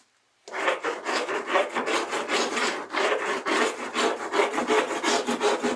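Surform rasp scraping in quick repeated strokes across small wooden blocks, rounding their edges and shaving off dried polyurethane glue. The rasping starts about half a second in.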